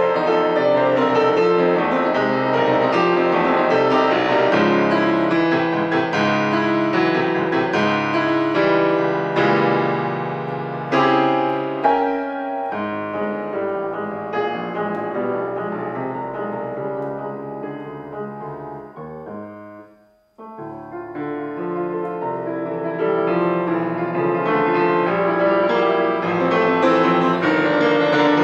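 Grand piano played solo in a classical sonata: dense, busy playing that thins and fades away to a brief silence about twenty seconds in, then resumes and builds up again.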